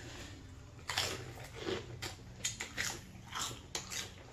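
Crispy pork rinds being bitten and chewed, giving a series of irregular crunches about half a second to a second apart.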